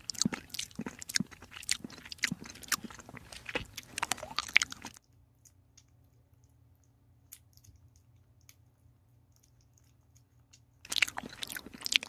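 A kitten chewing wet chunks of canned fish cat food, with fast, close, wet smacking and clicking. About five seconds in it goes nearly quiet for some six seconds, then the chewing starts again near the end.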